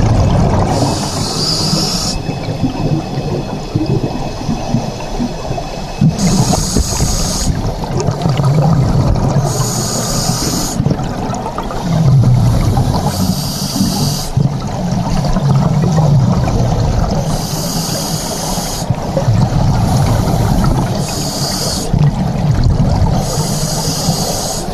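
Scuba diver breathing through a regulator underwater: a hiss on each inhale, recurring about every three to four seconds, alternating with the low bubbling rumble of exhaled air.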